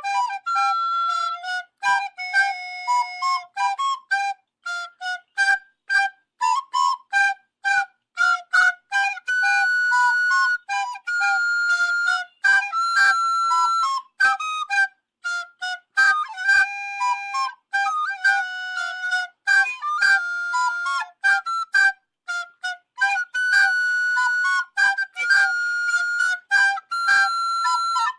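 A solo flute-like woodwind melody of quick short notes, with some longer held notes and brief pauses between phrases.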